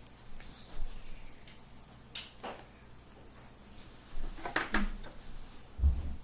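Scattered light clicks and small knocks of hands handling tools and materials on a work surface, with a dull thump near the end.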